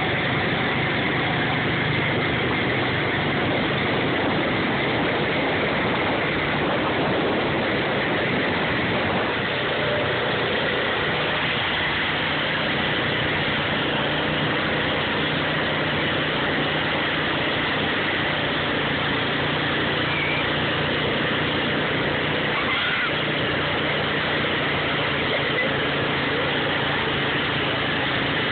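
Engine of a tow vehicle running steadily at an even speed, under the rush of churned water and spray as it pulls a rider on a rope through shallow floodwater.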